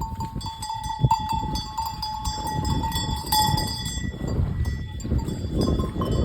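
Cowbells on grazing Angus cattle clanking in irregular clinks that ring on, over a steady low rumble.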